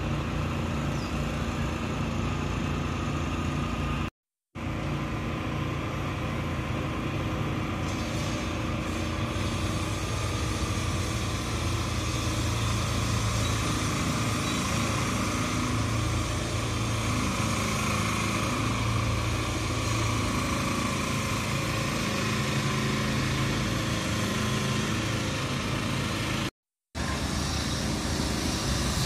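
Heavy diesel engines of road-works vehicles running steadily at idle, a low, even hum. The sound drops out completely twice, briefly: once about four seconds in and again near the end.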